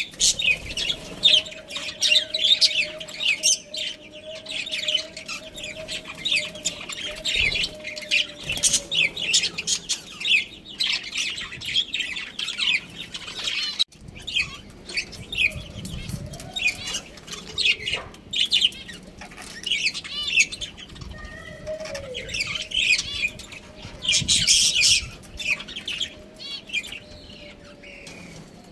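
Budgerigars chirping and chattering, many quick high chirps overlapping almost without pause, with a sudden short break about halfway through. A faint steady hum runs under the chirping for long stretches.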